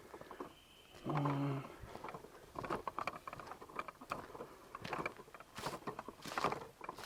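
Footsteps walking at a steady pace over dry ground cover, each step a short rustle. A brief hum of voice comes about a second in.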